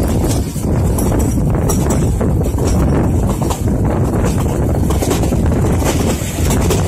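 Carriage of the Nilgiri Mountain Railway train running along the metre-gauge track: a steady rumble with wheels clattering and knocking over the rails, and wind buffeting the microphone.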